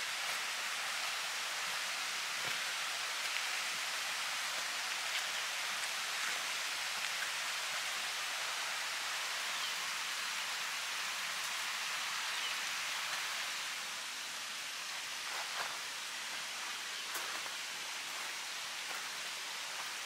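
Steady rush of a waterfall and its creek, an even hiss that drops a little in level about two-thirds of the way through, with a few faint ticks in the second half.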